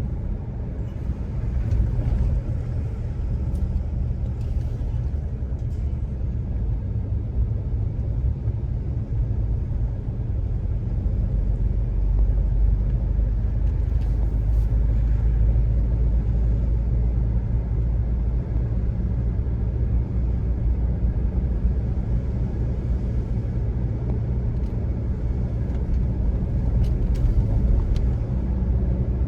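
A vehicle driving on the road: a steady low engine and road rumble that holds at an even level throughout.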